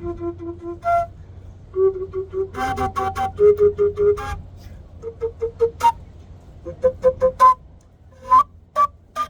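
Quenacho, a large Andean cane flute, playing a happy little tune in short, separately tongued notes, with each pitch often sounded several times in quick succession.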